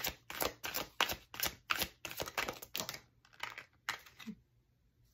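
A deck of tarot cards being shuffled by hand, the cards snapping together in quick rapid clicks about four to five a second. The clicks thin out about three seconds in and stop a little after four seconds.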